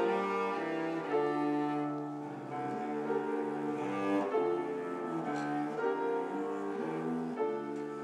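Cello bowed in a slow melody of sustained notes, changing pitch every half second to a second or so.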